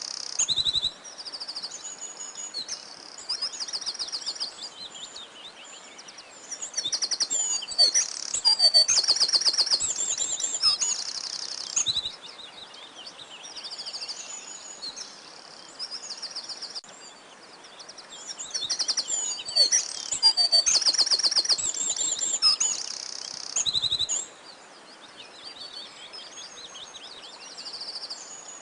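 Several songbirds singing, with rapid high-pitched trills and chirps repeating throughout and louder bouts of song twice.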